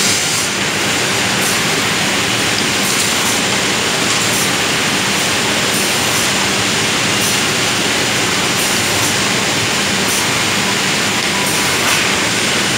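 Three-head wood drilling machine running: a loud, steady rushing noise from its drill motors and dust extraction, with a faint low hum underneath.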